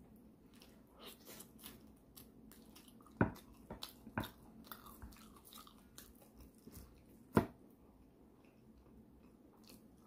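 Close-up wet chewing and mouth smacks of a person eating pork leg in gravy by hand, with scattered clicks and two sharp, loud smacks, about three seconds in and again about seven seconds in.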